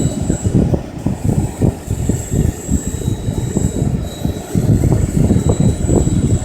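GAUI Hurricane 550 radio-controlled helicopter flying, with the rotor wash buffeting low and uneven on the microphone and a faint, steady high-pitched whine above it.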